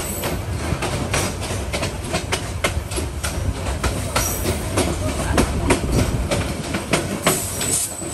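Intercity passenger train rolling slowly into a station, heard from aboard: a steady low rumble with wheels clicking sharply and irregularly over rail joints, several times a second.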